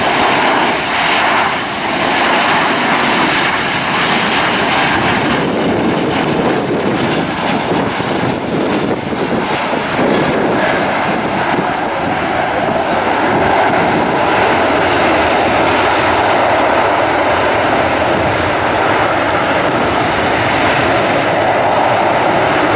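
Boeing 737-800's CFM56-7B jet engines passing close on landing. A high fan whine fades over the first few seconds, and a steady, loud jet noise carries on through touchdown and the rollout on the runway.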